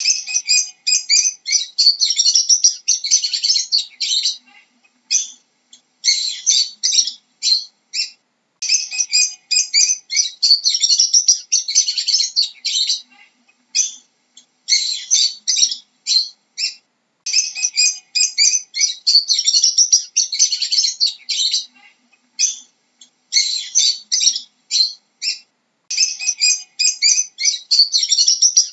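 Lovebirds chattering: rapid, high-pitched chirps and squeaks in bouts of a few seconds, broken by short pauses.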